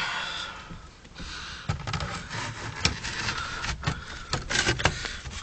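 Irregular clicks, knocks and rattles of car interior trim and console parts being handled and fitted in the cabin, with low bumps of handling noise.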